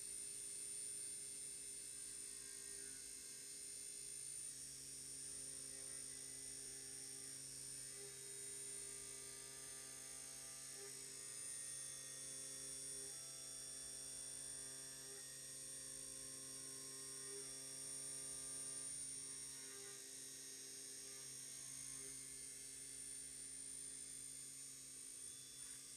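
Faint steady hum made of several held tones, with a soft pulse about every two seconds through the middle.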